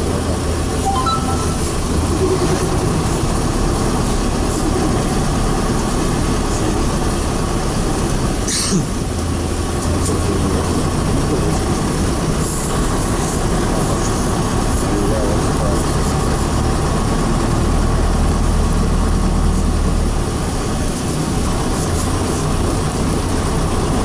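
Interior noise of a moving PAZ-32054 bus: engine running with cabin rattle and road noise, the engine's low hum shifting in pitch a few times. A single sharp click about nine seconds in.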